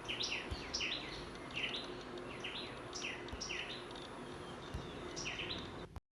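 Tailorbird singing: short phrases of two or three sharp, down-slurred notes, repeated about once a second, which cut off abruptly near the end.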